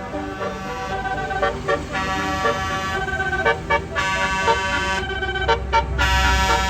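Tour bus's basuri musical horn playing a 'telolet' tune in short held notes, with the bus engine rumbling underneath and growing louder near the end.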